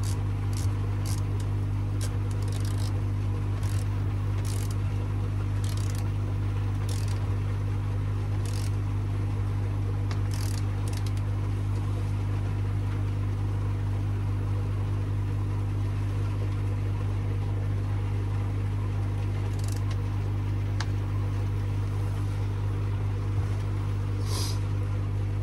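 A steady low electrical hum from the running pond filter-house equipment. Scattered light clicks come from a socket wrench as the nuts on a plastic slide valve are nipped up gently, without heavy force that could crack the plastic.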